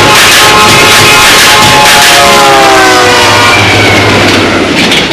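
An 'ear rape' edit: a sound boosted until it distorts, held at full loudness. Several pitched tones slide downward through the middle, and it starts to fade near the end.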